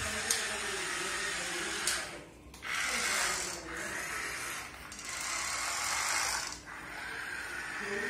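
Small electric motor and plastic wheels of a remote-control puppy-on-skateboard toy whirring as it drives over a hard stone floor, running in spurts that stop briefly a few times.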